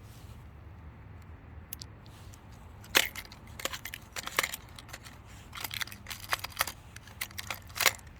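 Hard plastic fishing lures and their hooks clicking and clattering as they are handled, in a scatter of sharp clicks starting about three seconds in, over a low steady hum.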